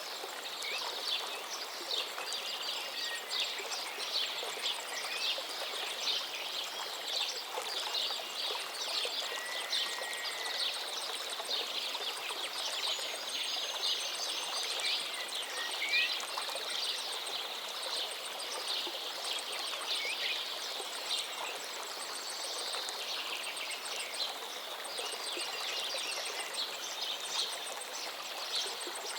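Running water from a gently flowing stream, a steady rush, with many birds chirping and singing over it, including a few whistled notes that rise and fall.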